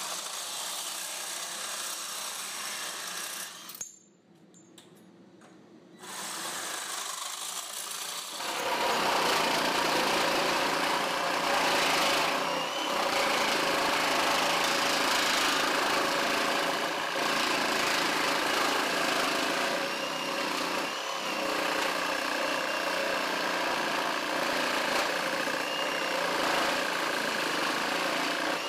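Metabo ASE 18 LTX 18V cordless reciprocating saw running steadily as it cuts through a metal pipe, then stopping briefly. It starts up again and saws continuously and loudly through a thick wooden post.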